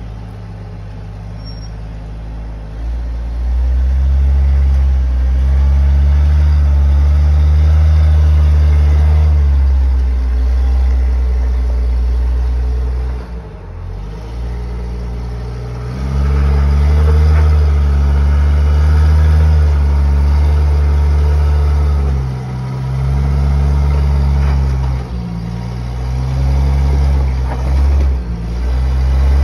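Jeep engine working on a rough trail, its throttle rising and easing. The rumble swells a few seconds in and drops back briefly several times.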